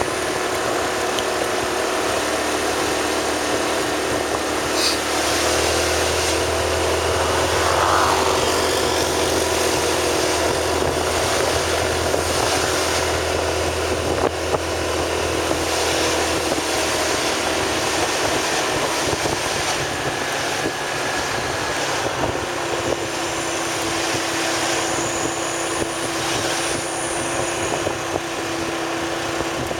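Motor vehicle running steadily along a road, its engine hum mixed with road and wind noise.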